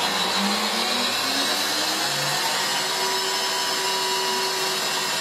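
Electric stand mixer whisking egg whites for meringue. The motor's pitch rises as it comes up to speed over the first couple of seconds, then holds at a steady high speed.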